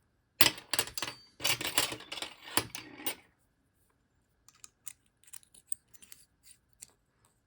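Metal sections of an Outlery collapsible utensil clicking, rattling and scraping against each other as they are handled and screwed together: a dense run of clicks for about three seconds, then a few faint light ticks.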